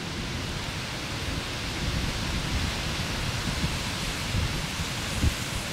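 Wind blowing on the camera microphone: a steady rushing noise with irregular low rumbling gusts and one sharper bump near the end.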